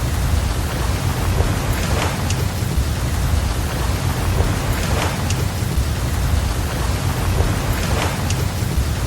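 Steady rain hiss over a deep low rumble of surf, with a faint tick recurring about every three seconds.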